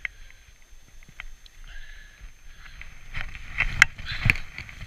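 Skis hissing and scraping through deep, soft snow as a skier starts down a steep slope, growing louder about three seconds in, with two sharp knocks near the end.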